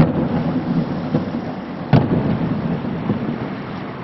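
Firework shells bursting overhead: a loud boom at the start and a second sharp bang about two seconds in, each followed by a low rumble that fades.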